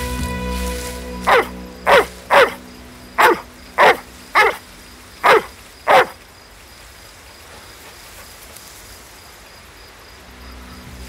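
A large dog barking eight times in quick succession over about five seconds.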